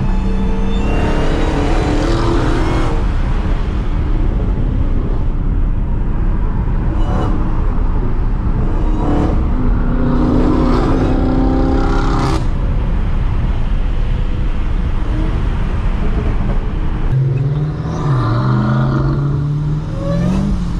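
Dodge Charger SRT Hellcat's supercharged V8 being driven hard, over heavy, steady road and tyre noise. The engine note climbs and drops in steps several times as it revs through the gears. Near the end a single engine note rises and falls.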